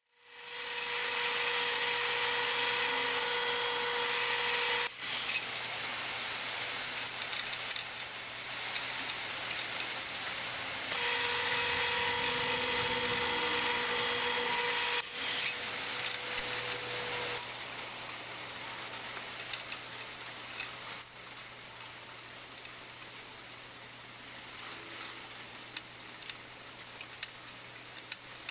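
Harbor Freight X2 mini mill running while center-drilling and then drilling a hole in an aluminium block. The spindle gives a steady whine over a wash of cutting noise. The whine comes and goes, the last part is quieter, and a few light ticks come near the end.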